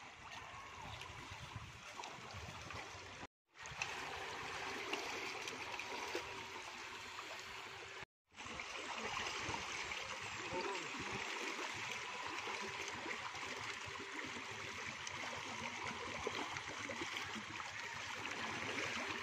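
Steady rushing of flowing river water. It cuts out completely for a moment twice, a few seconds in and again about eight seconds in.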